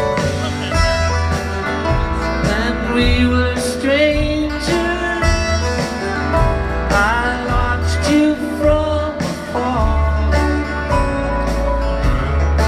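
A live acoustic string band plays a country/bluegrass-style song: acoustic guitar, upright bass, fiddle and drums. It is recorded from within the audience.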